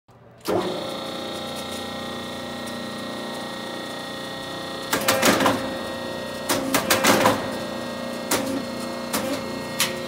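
The electric motor and hydraulic pump of a hydraulic gutter elbow crimping machine start up about half a second in and then run with a steady hum. Two clusters of clattering clicks come about five and seven seconds in, with single clicks after, as the crimper is cycled from its push-button controls.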